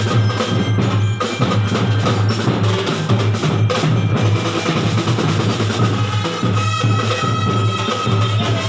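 Drum and bugle corps playing: a drumline of snare and bass drums beating, with brass horns holding sustained notes that stand out more clearly near the end.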